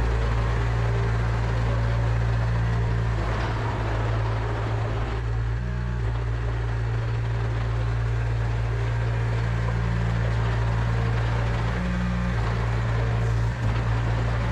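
Yanmar mini excavator's diesel engine running steadily, with a constant low hum, while the machine is driven in a straight-line tracking test with its two hydraulic pump outputs swapped.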